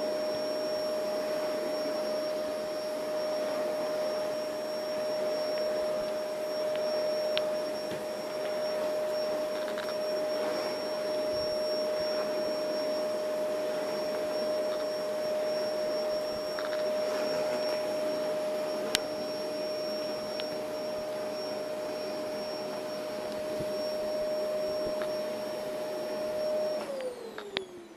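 Vacuum cleaner motor running with a steady whine over its rushing airflow, with a few brief clicks as it works. Near the end it is switched off and the whine falls in pitch as the motor spins down.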